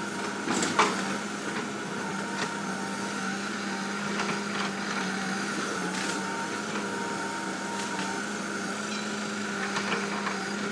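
Heavy earthmoving machinery running steadily, a diesel drone with a fixed low tone, with a few short sharp cracks or knocks on top, the loudest about a second in.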